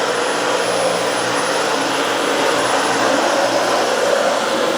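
Dyson Slim Ball upright vacuum cleaner running steadily as it is pushed around.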